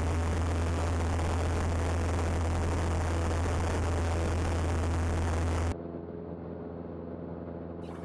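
Citabria light plane's piston engine and propeller droning steadily in cruise, with wind rush over the airframe. About two-thirds of the way through, the sound drops abruptly to a quieter, muffled drone.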